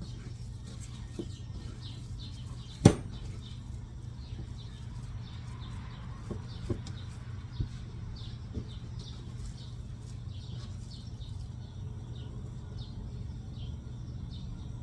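Ground chicken being mixed with its seasoning, a run of soft, wet flapping and squishing with a few small knocks. One sharp knock about three seconds in, and a steady low hum underneath.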